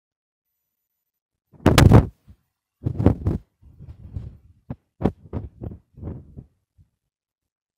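Phone microphone being handled: a loud thump about a second and a half in, a second one about a second later, then a run of smaller knocks and rubbing noises that die away over the next few seconds.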